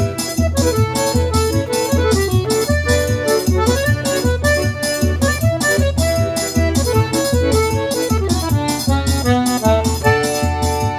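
Brazilian forró music: an accordion playing the melody over a steady, even beat of low drum thumps and a bright, high percussion pulse.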